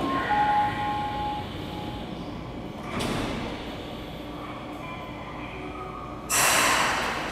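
The sliding doors of a Y500 series commuter train closing at the platform before departure. A short tone sounds at the start, then a sharp noise about three seconds in, and a loud hiss of air lasting about a second near the end.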